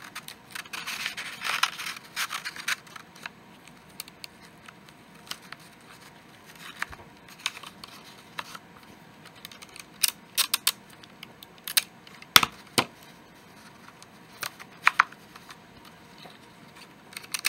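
Clear sticky tape pulled off a plastic desk dispenser and torn on its cutter, with paper rustling as the tape is pressed onto a rolled paper tube. A short rasp at first, then scattered sharp clicks and snaps.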